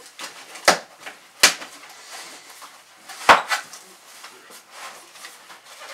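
Cardboard boxes and packing inserts being handled and pulled out, with rustling and scraping and three sharp knocks: two within the first second and a half and one about halfway through.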